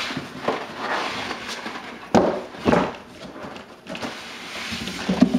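Cardboard box and packing being handled: rustling and scraping, with two loud thumps about two seconds in, half a second apart.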